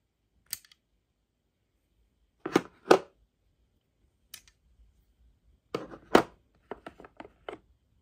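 Steel crimp dies clicking and clacking as they are worked out of the jaws of a hydraulic crimping tool: two pairs of sharp clacks, then a quick run of four lighter clicks near the end.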